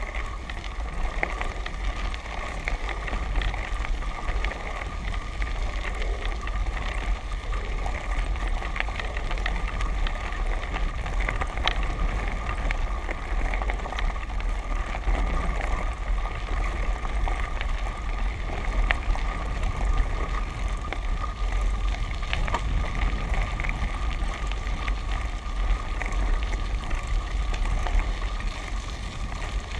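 Tyres rolling over a gravel and dirt track, with continuous crunching and small rattling clicks. A steady low wind rumble runs underneath.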